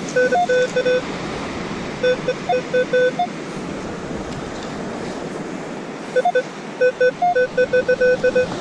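Metal detector beeping over a buried target: three groups of short, mid-pitched beeps, a few of them a step higher, the last group near the end the longest. Steady surf and wind hiss sits underneath.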